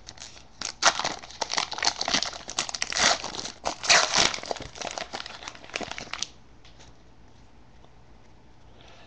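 Trading card pack wrapper being torn open and crinkled by hand, a busy crackling that stops about six seconds in.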